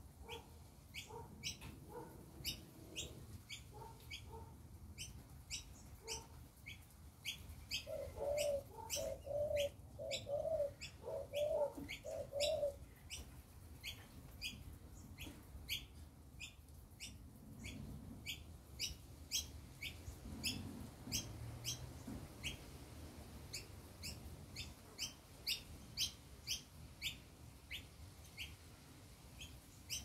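Small birds chirping in short high notes, one or two a second, with no break. About a third of the way in a dove coos a run of about six low notes lasting some four seconds.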